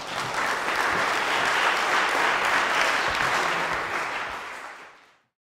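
Audience applauding, a steady dense clapping that fades away near the end.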